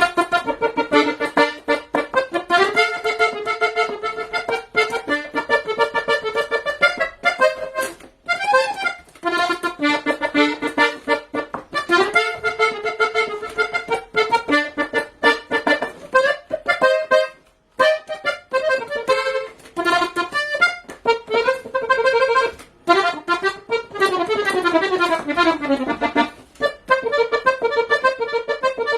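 A Chinese-made accordion played solo: a lively tune of chords and short repeated notes with quick runs, pausing briefly twice and sliding down in a falling run near the end.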